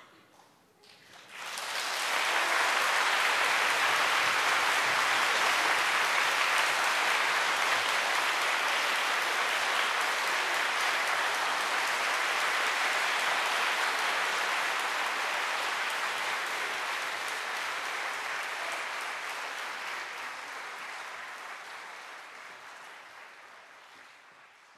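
Audience applauding. It starts about a second and a half in, holds strong, then gradually fades toward the end.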